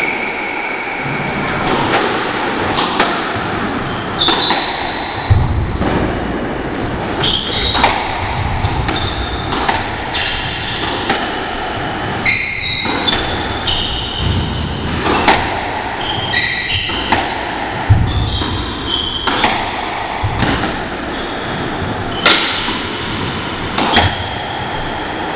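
Squash rally: the ball's sharp cracks off the racket strings and the court walls at an irregular pace, with short high shoe squeaks on the wooden floor and some dull thuds.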